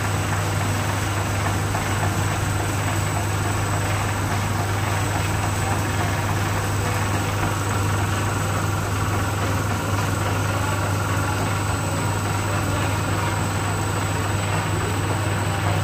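Flexo label printing machine running steadily: a constant low motor hum with a faint high-pitched whine over an even mechanical whir.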